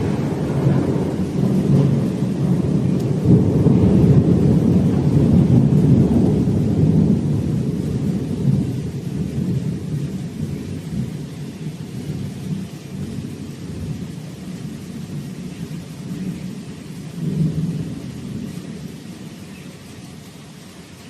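Rolling thunder from a lightning strike: a loud low rumble for the first several seconds that slowly dies away, with one more brief swell about seventeen seconds in.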